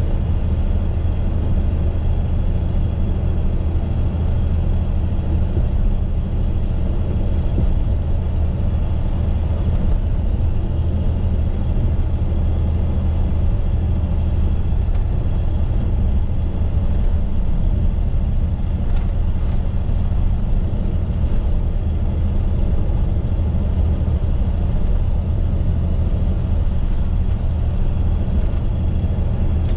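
Truck engine running steadily at cruising speed, heard from inside the cab, with tyre and road noise on a wet road: a constant deep drone that does not change.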